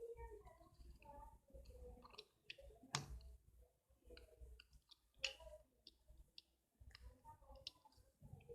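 Faint clicks and small taps from handling a charger's circuit board and soldering iron while a fuse is soldered in; two sharper clicks about three and five seconds in, otherwise near silence.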